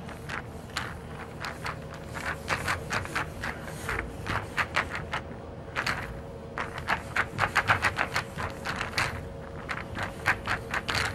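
Pool balls rolling and clacking against one another in bursts of quick, irregular clicks.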